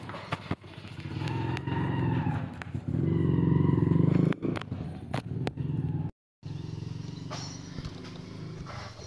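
Small motorcycle engine running at idle, rising in level around three to four seconds in and then easing back. The sound cuts out for a moment about six seconds in, then the engine idles more quietly.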